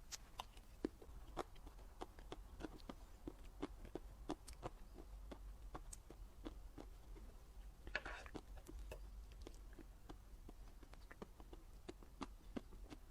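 Close-miked mouth sounds of eating a homemade chocolate dessert: soft, irregular wet clicks and smacks of chewing, two or three a second.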